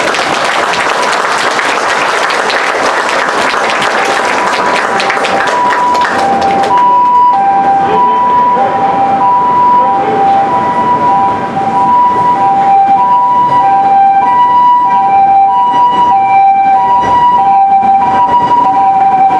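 Japanese ambulance siren passing, sounding its two-tone hi-lo call, alternating high and low notes about every two-thirds of a second. For the first six seconds or so a crowd applauds over it.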